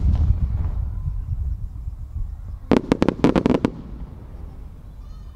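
Aerial firework shells exploding: the rumble of a deep boom dies away over the first couple of seconds, then a quick run of about seven sharp bangs comes about three seconds in.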